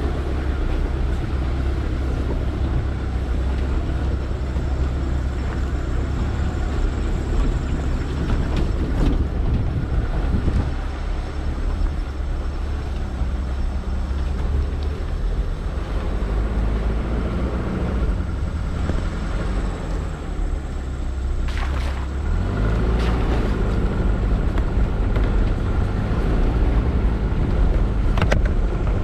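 Vehicle engine running steadily with rumbling road noise on a rough off-road track. A few short knocks are heard, and the engine's pitch rises about three-quarters of the way through.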